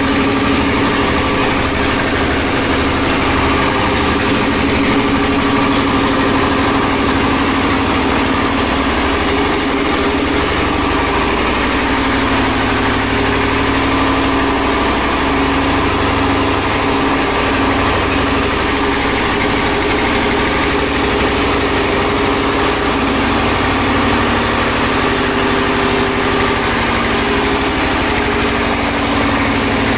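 Single-cylinder diesel engine of a generator set running steadily, with an even low pulse from its firing strokes.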